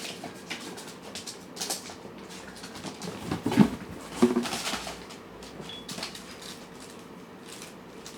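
Cats and kittens eating from food dishes: irregular small clicks and light knocks against the bowls, loudest in a cluster around the middle.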